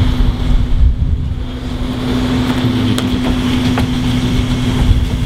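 A steady mechanical hum over a low rumble, with a couple of faint clicks about three seconds in.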